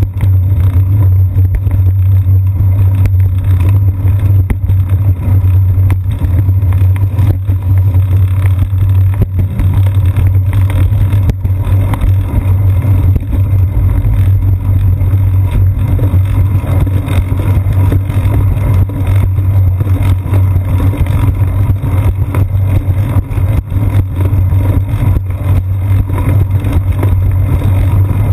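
Constant low rumble with many small knocks and rattles: road and wind noise of a bicycle rolling over pavement and bricks, carried up the seat post into a mounted GoPro action camera.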